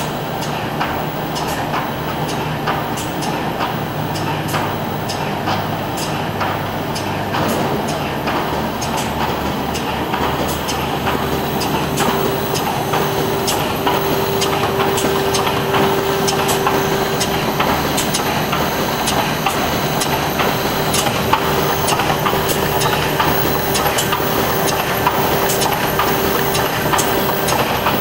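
Adco 15D105 horizontal cartoner running in production: a dense, steady mechanical clatter with many sharp clicks. A steady tone joins the noise about eleven seconds in.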